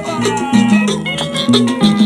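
Cumbia music: a sustained, gliding melodic lead over a steady bass line and regular percussion.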